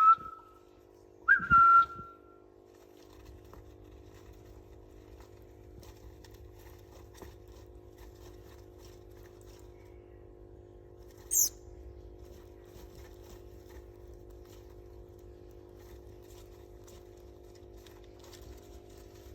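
Two short, steady whistled notes in the first two seconds, then a faint steady hum with one brief high-pitched chirp from a baby finch about halfway through.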